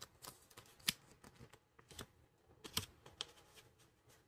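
Faint handling of a paper checklist card and blind-bag packaging: a few light, irregular clicks and rustles, the sharpest about a second in and near three seconds.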